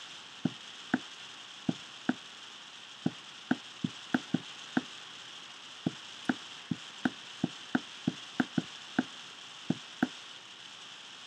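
Sharp, irregular taps on a tablet screen as a word is handwritten on it, about two a second, over a steady hiss.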